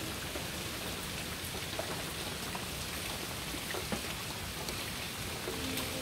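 Steady hiss with faint scattered ticks. About five and a half seconds in, a distant train horn starts blowing again: one held chord of several tones.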